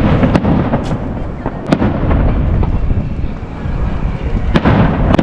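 Aerial fireworks shells bursting, several sharp cracks over a continuous low rumbling boom from the display.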